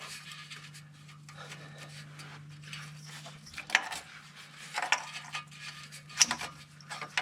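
Oxygen sensor being screwed in by hand, its threads just caught in the exhaust bung: faint scraping with a few light metal clicks in the second half, over a steady low hum.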